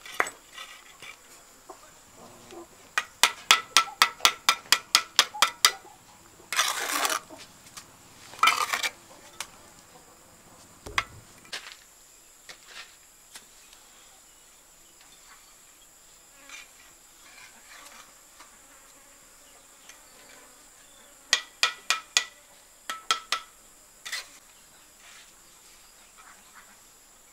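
Brick trowel knocking bricks down into wet cement mortar to bed them, in quick runs of sharp taps about four a second, with the rough scrape of the trowel through mortar a few seconds in. A steady high insect drone runs underneath.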